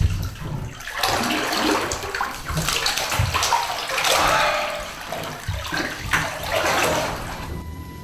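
Bathwater splashing and sloshing in a bathtub as a person moves in it and brings wet hands to his face, in uneven loud swells; it stops shortly before the end.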